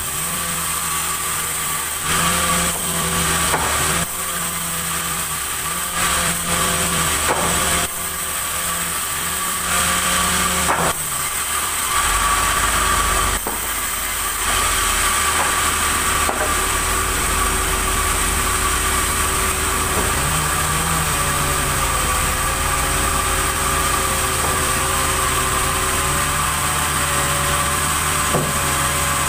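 Sawmill machinery running: a steady engine hum with a constant high whine, and a few sharp knocks about eleven seconds in.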